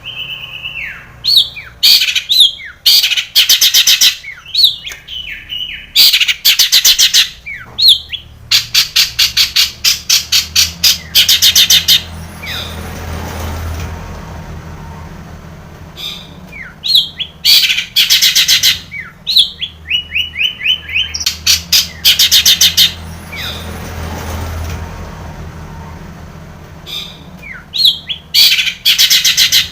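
Long-tailed shrike (cendet) singing: loud bouts of harsh rattling notes, fast repeated chips and falling whistled slurs, mixed with mimicked phrases, broken by two pauses of a few seconds. A low steady hum lies underneath and is most noticeable in the pauses.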